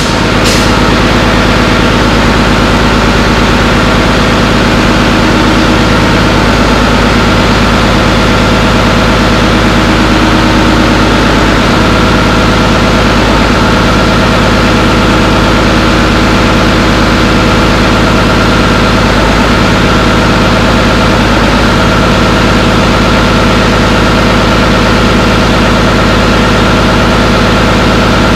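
Caterpillar D3C Hystat dozer's diesel engine running steadily, with a steady whine riding over it. There is a sharp click near the start.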